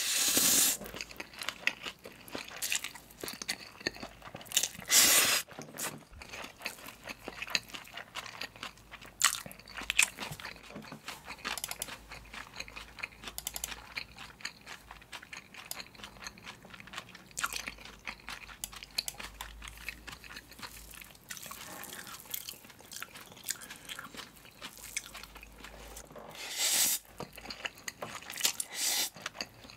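A person slurping spicy cold bibim-guksu noodles with aged kimchi and chewing them with crunchy bites. Loud slurps at the start, about five seconds in and twice near the end, with quieter chewing and crunching between.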